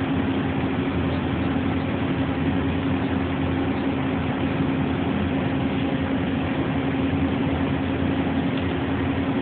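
Steady hum of running shop machinery, an even noise carrying one constant low tone, with no change in pitch or level.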